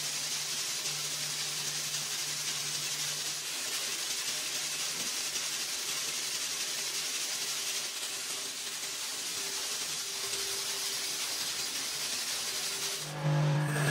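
Steady hiss of a compressed-air paint spray gun, with a low hum under it in the first few seconds. Near the end a louder machine hum cuts in.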